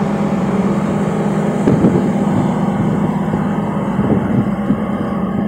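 Boat engine running steadily underway, a constant low drone, over a steady rush of wind and water.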